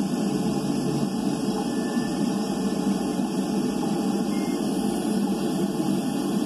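Steady, low rushing background noise from an ocean hydrophone, with no knock or call standing out.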